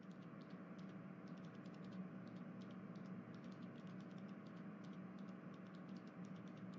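Faint steady low hum and hiss with many light, irregular ticks scattered through it.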